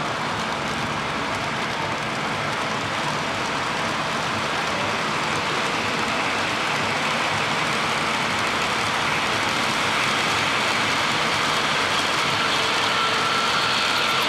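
O gauge model freight cars rolling past on three-rail track: a steady rumbling clatter of metal wheels on the rails, growing slowly louder toward the end.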